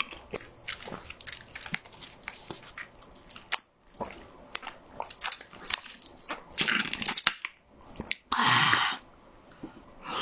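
Close-miked eating sounds: a person chewing and crunching food, with many small sharp mouth clicks. Two louder noisy stretches, about seven and eight and a half seconds in, as juice is sucked through a straw from a juice box.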